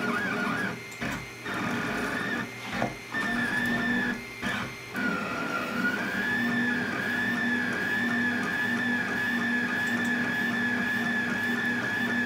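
Anycubic Kossel delta 3D printer printing, its stepper motors whining in wavering tones. For the first few seconds the whine breaks off and restarts with short moves; then it runs continuously with a gently warbling pitch. The printer stands on its stock feet, without tennis-ball vibration dampers.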